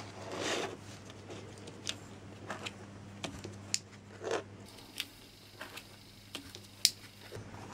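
Small plastic clicks, taps and rubbing as a wired two-AA battery holder is handled and pressed onto an auto-darkening welding filter cartridge on a wooden table, with a sharper click near the end.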